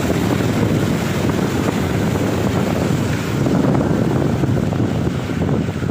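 Wind buffeting the microphone over a low, steady rumble of road traffic.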